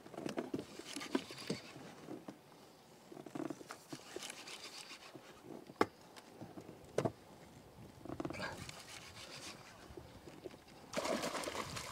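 Wooden pole rubbing and knocking against a small boat as it is pushed through shallow water, in irregular bursts, with two sharp knocks a little before six and seven seconds in.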